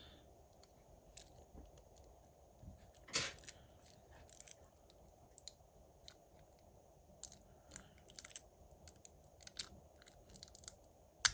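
Scattered small clicks and crackles of hand tools working at a phone battery's taped protection board. The sharpest click comes about three seconds in, and a cluster comes near the end.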